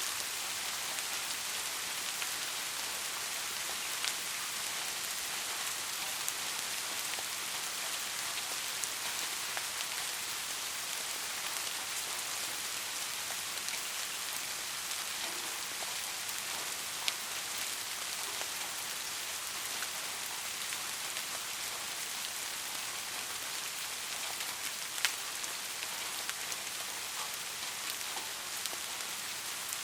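Steady rain falling, an even hiss with a few sharper, louder drop ticks now and then.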